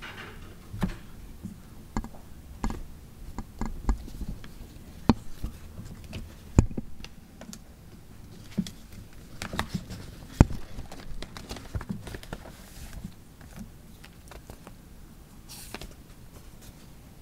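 Sheets of paper being leafed through and handled on a lectern close to the microphone: irregular taps and knocks with short rustles, the two loudest knocks about six and a half and ten seconds in.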